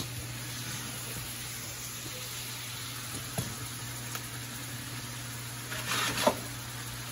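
Vegetables sizzling steadily in a large aluminium stir-fry pan over a low steady hum, with a short clatter about six seconds in.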